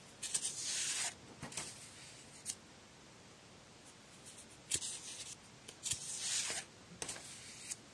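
Sheets of paper rustling and sliding as they are handled and turned by hand: a burst near the start, then several short ones in the second half.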